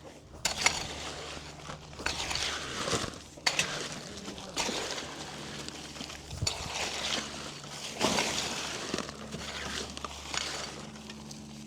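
Wet concrete being mixed and poured by hand during casting: irregular sloshing and scraping, with occasional sharp knocks of tools, over a steady low hum.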